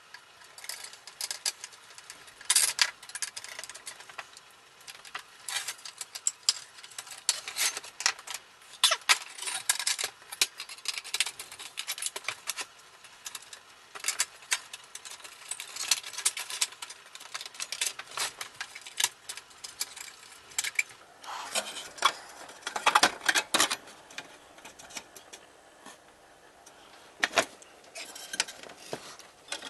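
Metal and plastic parts of a Mr. Heater Buddy propane heater clicking, knocking and rattling as it is taken apart by hand with a screwdriver. The sounds come irregularly, busiest a little after two-thirds of the way through, with one sharp knock near the end.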